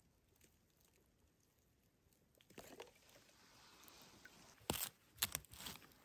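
Quiet at first, then from about two and a half seconds in, water trickling and dripping as a plastic bottle filled in a frozen tarn is lifted out of the icy water. Two sharp crunches follow near the end, with more crackling after them.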